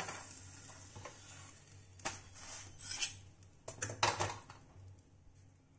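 Metal tongs clinking and scraping against an iron tawa and a stainless steel plate as a cooked paratha is lifted off and set down: a clink at the start, another about two seconds in, and a quick cluster of clinks around four seconds in.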